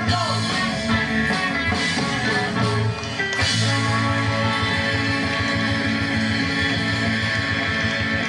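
Live rock band playing electric guitars and drums with no vocals. From about three and a half seconds in, the guitars settle into a long held chord. It is heard as played back through a television.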